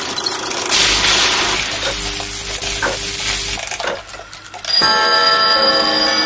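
Sound-designed clockwork effects: a hissing whoosh with a few clicks, then, about four and a half seconds in, a loud bell chime sets in suddenly and rings on with several steady tones together.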